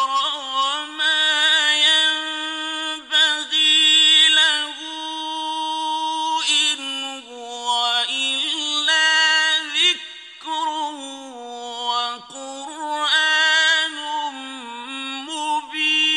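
A male Quran reciter chanting in the melodic mujawwad style, drawing out long held notes with wavering ornaments and pausing briefly for breath between phrases.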